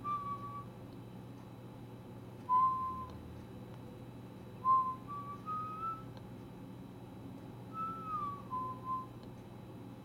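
Soft whistling in short, clear notes that step between a few pitches and sometimes slide downward, over a steady low hum.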